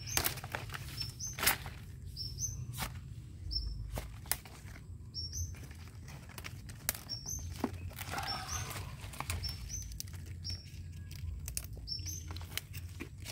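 Kailan (Chinese kale) stems being snapped off by hand, with the leaves rustling: a run of short sharp cracks and rustles. A small bird chirps repeatedly in short high notes.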